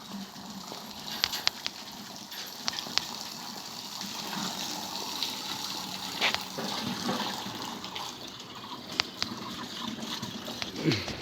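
Running water with a steady rushing noise, broken by scattered sharp clicks and knocks.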